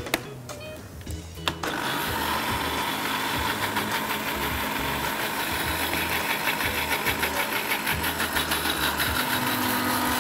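Countertop electric blender switched on about one and a half seconds in, after a couple of clicks, then running steadily as it blends a thin coconut-milk batter.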